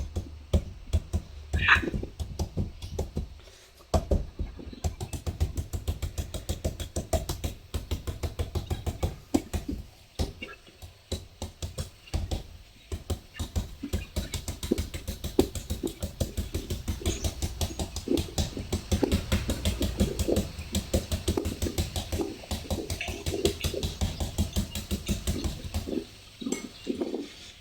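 Knife chopping rapidly into a green papaya to shred it for som tam: a steady run of quick strikes, about four a second, with short breaks a few seconds in and again near ten seconds, stopping shortly before the end.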